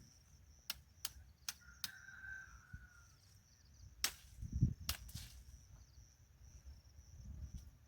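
A scatter of sharp clicks and snaps, about four in the first two seconds and a few more later, with a dull thump near the middle, over a steady high chirring of insects.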